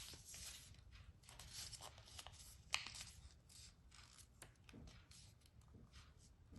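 Faint rustling and creasing of a sheet of A4 paper being folded by hand, in short scattered scrapes and clicks, with one sharper crinkle near the middle.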